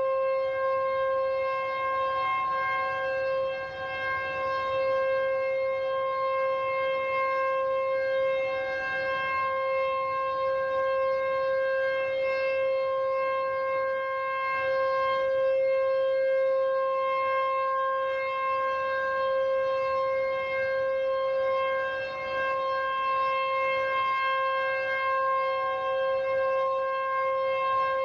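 SuperSirex outdoor warning siren sounding a steady, held tone during its three-minute test, its pitch unchanging while the loudness swells and dips slightly.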